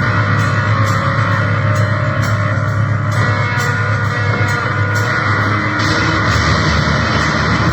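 Loud, dense noise music built on distorted guitar, a thick unbroken wall of sound with a heavy low drone. A steady pulse of short high ticks comes about twice a second.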